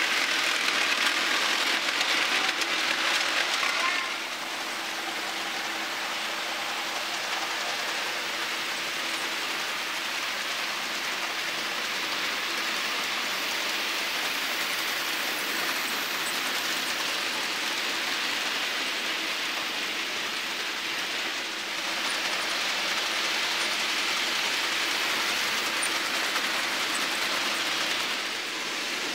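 Hornby and Bachmann model trains running on a layout: a steady whirr and rattle of motors and wheels on the track. It is louder for the first few seconds and again for the last several seconds as trains pass close by.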